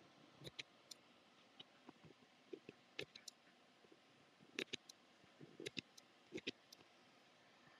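Faint, irregular clicks and taps, singly and in small clusters, over a quiet background hiss.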